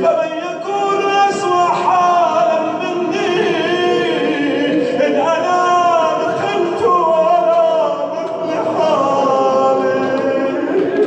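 A man's voice chanting a supplication melodically, with long drawn-out notes whose pitch wavers and glides in ornamented turns.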